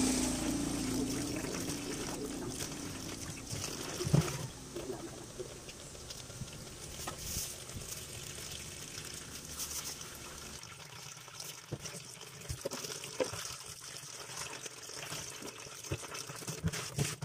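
Kitchen tap running in a thin stream into a plastic basin of water, trickling and splashing, with scattered small knocks and a sharper knock about four seconds in.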